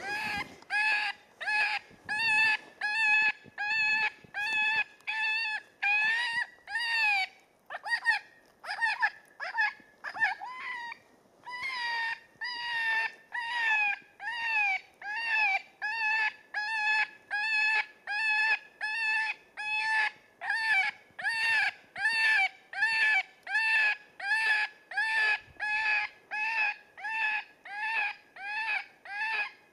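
Electronic predator call playing a prey distress sound for bobcats: a high crying note, rising then falling, repeated evenly about one and a half times a second, with two short pauses about 8 and 11 seconds in.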